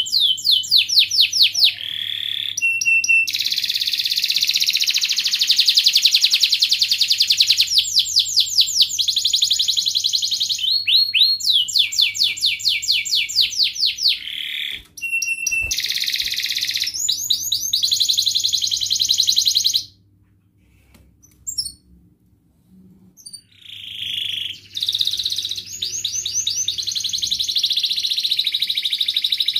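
Domestic canary singing long, rapid trills and rolls of repeated chirping notes, with a pause of a few seconds about two-thirds of the way through before the song resumes.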